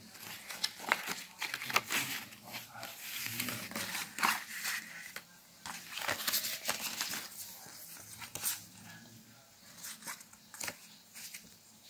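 Paper and thin card rustling and crinkling as hands handle a product's printed leaflets and cards: a run of crisp, irregular rustles, busiest in the first half and lighter towards the end.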